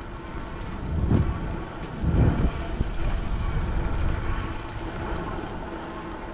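Wind rumbling on the microphone of a camera riding along on a moving bicycle, mixed with the rolling noise of the ride, with two louder gusts about one and two seconds in.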